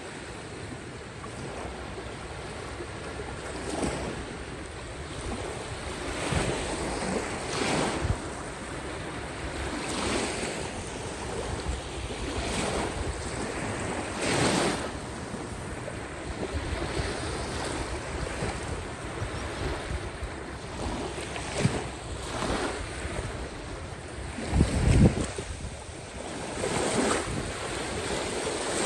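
Caspian Sea waves washing onto the shore, surging and falling back every couple of seconds, with wind buffeting the microphone in a strong low rumble a little before the end.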